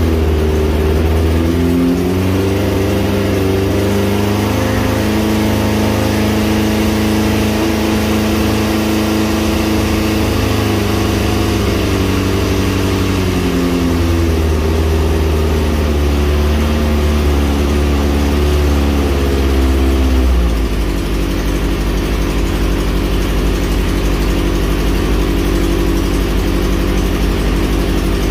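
Kawasaki 400cc four-cylinder engine in a quad bike, running on its first start after an engine swap. It rises to a raised, slightly wavering speed, dips briefly about halfway through, then drops to a lower, steady idle about 20 seconds in.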